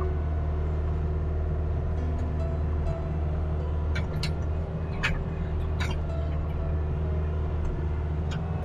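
Kubota RX-503S mini excavator's diesel engine running steadily while digging, heard from the operator's seat. A few sharp knocks sound about four to six seconds in.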